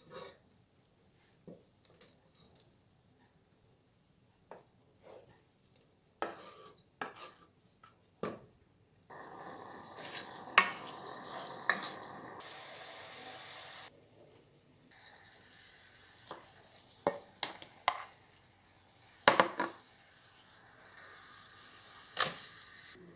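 Onions and diced ham frying in oil in a nonstick pot: a steady sizzle starts about nine seconds in, after a few knocks. A wooden spoon stirring knocks and scrapes against the pot throughout, and the sizzle drops lower after about fourteen seconds.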